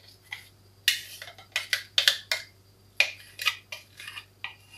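A spatula scraping thick, creamy apricot-and-apple purée out of a blender jug, with a string of sharp clicks and taps as it knocks against the jug.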